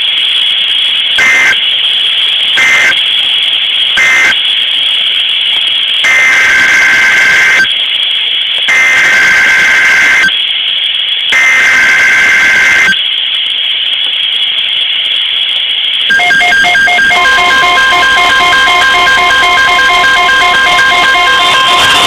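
NOAA Weather Radio EAS/SAME alert data over a steady high whine. First come three short two-tone data bursts about a second and a half apart (the end-of-message code). Then come three longer two-tone data bursts (the header of a new alert), and a few seconds before the end the steady single-pitch weather radio warning alarm tone begins.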